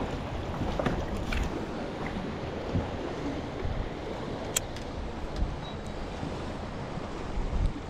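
Wind buffeting the microphone over water splashing and lapping against a boat's hull, with a few light clicks, the sharpest about halfway through.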